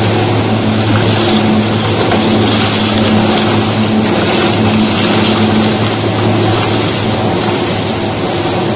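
Dual-shaft tire shredder running with a steady hum, its counter-rotating toothed blades chewing pieces of scrap tyre rubber in a dense, continuous grinding noise.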